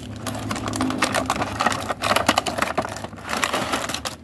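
A toy box being opened by hand: a fast, irregular run of crackles, rustles and clicks from the packaging being handled and pulled apart.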